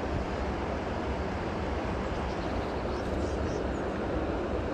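Steady rushing noise of a flowing river, with a few faint high chirps in the second half.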